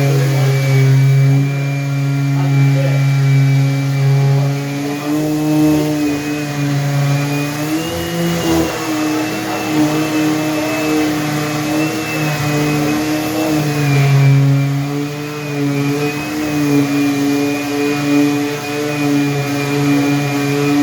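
An electric motor runs steadily with a hum and a high whine. Its pitch wavers a little without stopping.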